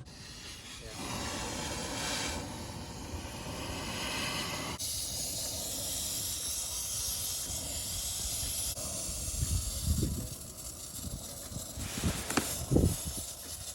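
Steady hissing noise that shifts in tone twice, with a few short knocks near the end.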